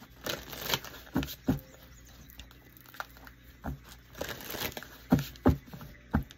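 Tarot cards being shuffled and handled: papery swishing and a string of sharp, irregular slaps and taps of the cards.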